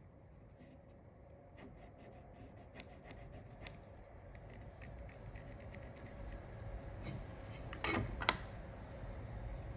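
Pencil scratching along a square as a marking line is squared down the timber again, with light handling ticks and two sharper knocks of tools on the wood near the end.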